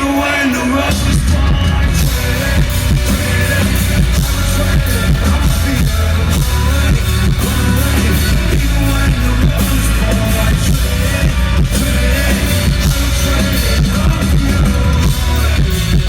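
Live rock band playing with a sung vocal. Heavy bass and drums come in about a second in, and the full band keeps going loud and steady.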